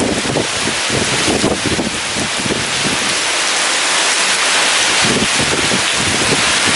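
Heavy rain and strong gusting wind in a storm, a loud steady hiss of rain with the lower rush of wind rising and falling in gusts.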